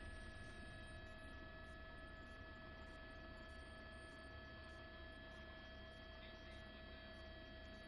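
Near silence: a faint, steady electrical hum with a thin, unchanging high whine over it.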